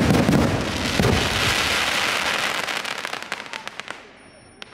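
Aerial fireworks shells bursting: a loud boom at the start and another about a second in, followed by dense crackling that thins out and fades over the next few seconds, with a few scattered pops near the end.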